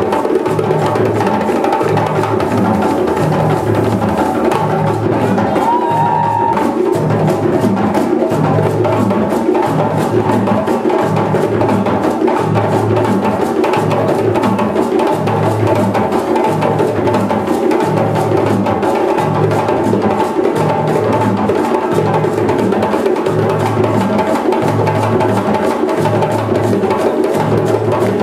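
Live West African drum ensemble: several djembes play sharp slaps and tones over a steady, repeating rhythm of low bass drums.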